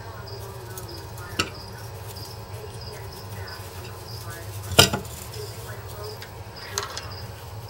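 A feeder cricket chirping in short, evenly repeated high chirps, with three sharp knocks, the loudest about five seconds in, and a low steady hum underneath.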